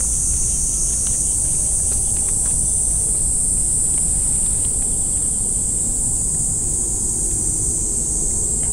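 A steady, high-pitched chorus of insects, unbroken throughout, over a low rumble.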